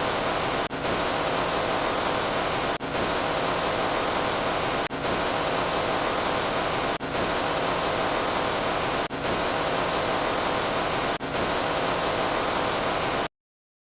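Steady rushing, static-like noise that dips briefly about every two seconds, like a short noise sound effect played on a loop. It cuts off abruptly into silence near the end.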